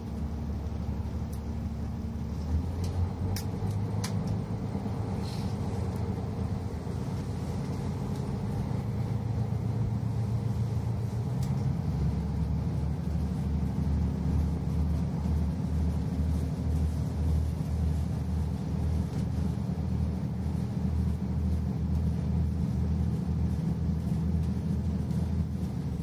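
KiHa 185 series diesel railcar heard from inside the passenger cabin: its diesel engine running under load as the train gets under way, over the rumble of the running gear. The engine note steps up about three seconds in and again about twelve seconds in, and the sound grows slowly louder.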